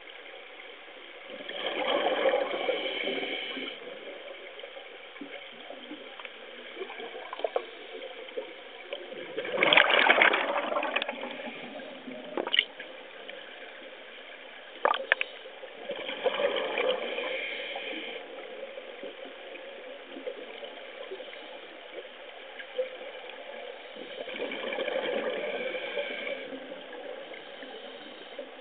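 Scuba regulator exhaust bubbles heard underwater: a burst of bubbling about every seven or eight seconds, four times, the loudest about ten seconds in, with a few sharp clicks in between.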